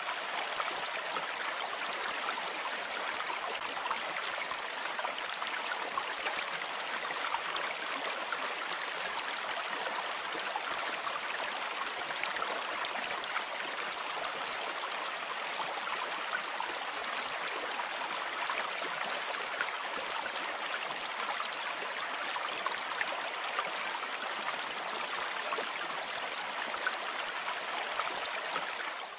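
Water running steadily from a small pump nozzle onto soil, an even rushing trickle that cuts off abruptly at the end.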